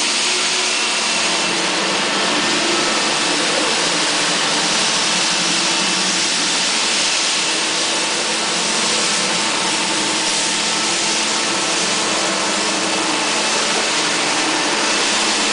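Salla 350BTSL2 walk-behind floor scrubber-dryer running steadily as it scrubs and sucks up a foamy wet floor, making an even, unchanging motor noise.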